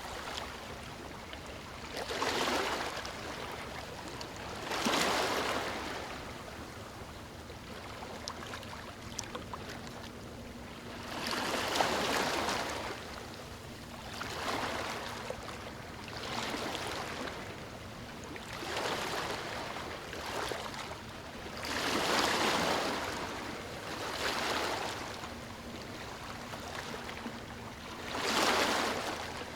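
Small ocean waves breaking and washing up a beach: a rush of surf that swells and fades every two to three seconds.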